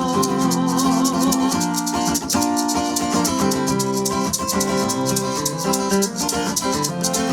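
A live band playing an instrumental break: strummed guitar chords with a shaker keeping a fast, even beat.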